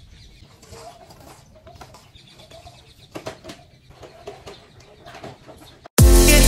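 Faint birdsong, with short repeated calls like doves cooing, and a few light clatters of things being handled. About six seconds in, loud background music with a heavy beat cuts in suddenly.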